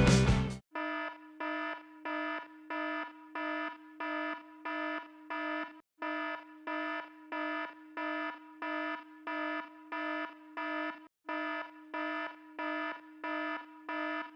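The tail of rock music fades out, then an electronic beeper sounds a steady single-pitch beep a little under twice a second, with two short breaks, in dead silence between beeps.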